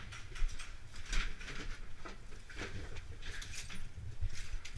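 Footsteps crunching on plaster and rubble, with gear and clothing rustling, in irregular bursts over a low rumble from the moving head-mounted camera.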